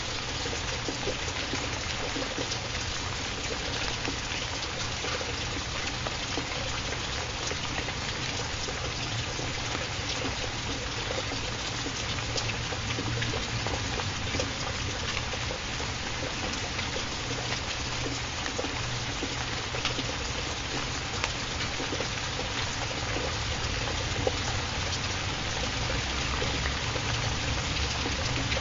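Steady rain: an even hiss with scattered faint drop ticks, unchanging throughout.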